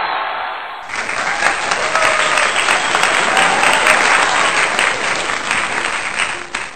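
A small group of people clapping and cheering, with voices mixed in; it starts abruptly about a second in.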